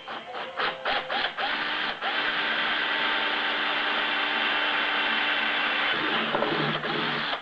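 A few clicks and knocks, then a small electric drill runs steadily for about five seconds, boring a small hole in a plastic CD, and stops abruptly.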